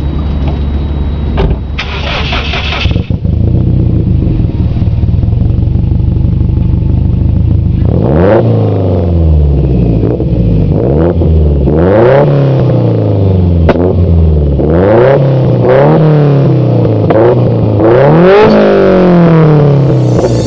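Subaru WRX's turbocharged boxer flat-four exhaust through an aftermarket header: idling steadily, with a short hiss about two seconds in, then revved up and let fall back repeatedly from about eight seconds in.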